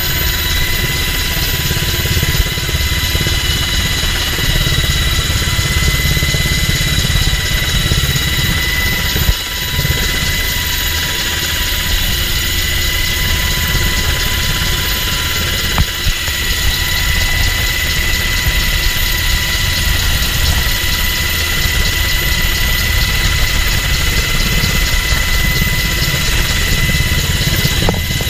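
MH-60 Jayhawk helicopter in flight heard from inside the cabin with the side door open: steady noise of the rotors and twin turboshaft engines, a constant high whine over a low throb.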